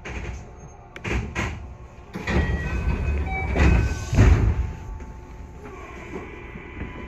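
Sliding passenger doors of a JR West 221 series train closing at a station stop: a couple of clicks, then a clatter that ends in a heavy thud as the doors shut.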